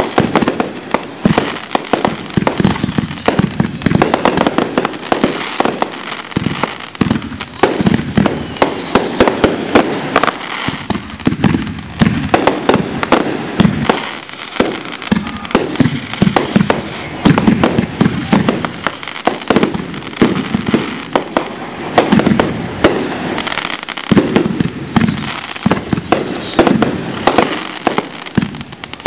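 Finale barrage of consumer firework cakes and reloadable aerial shells, launching and bursting in rapid overlapping reports with no pause, with a few falling whistles now and then.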